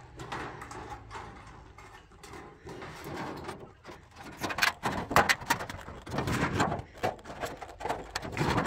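Aviation snips cutting through a sheet of galvanized steel in an irregular run of sharp cuts, one at each squeeze of the handles. The cutting gets louder and comes faster from about halfway through.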